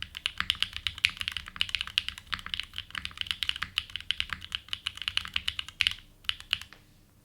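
Fast continuous typing on a Geonworks F1-8X custom mechanical keyboard with an aluminium plate, frankenswitches (Pure Berry housing with Cherry top, 65 g spring) and GMK keycaps: a rapid stream of keystroke clacks. The typing pauses about six seconds in, gives a short last flurry, then stops near the end.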